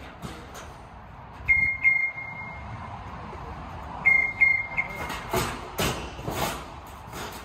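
Scissor lift alarm beeping, two groups of three short high-pitched beeps. A few brief bursts of noise follow near the end.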